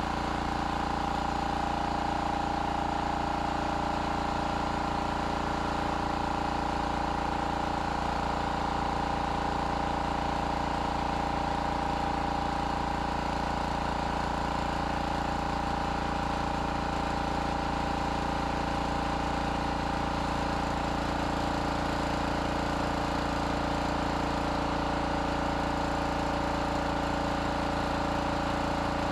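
Air Venturi 4500 high-pressure air compressor running steadily during a test fill, its water cooling system running with it, with a steady tone and an even low pulsing. No hiss of an air leak: the repaired gauge fitting is holding.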